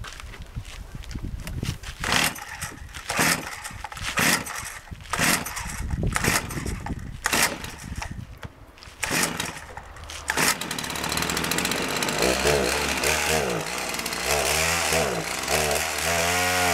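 A Partner 465 two-stroke chainsaw is pull-started on old fuel mix after sitting unused for a year and a half. The starter cord is yanked again and again, roughly once a second, until the engine catches about ten seconds in. It then runs, revving up and down several times.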